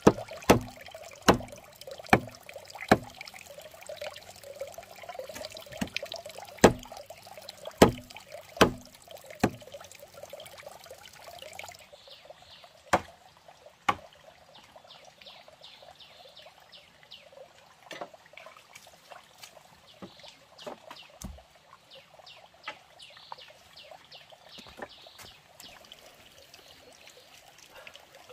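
A heavy knife chopping down onto a wooden log block, sharp knocks about one a second through the first ten seconds and twice more a few seconds later. A small stream trickles steadily underneath.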